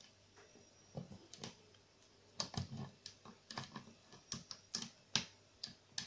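Irregular small metallic clicks of a lock pick and tension wrench working the pin stack inside a brass Arrone cylinder lock, sparse at first and coming quicker from about two seconds in.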